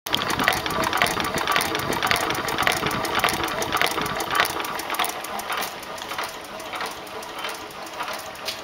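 1914 International Harvester Titan 2½ hp hopper-cooled hit-and-miss engine, a single-cylinder stationary engine, running with a steady clicking of its valve gear about twice a second, a little quieter in the second half.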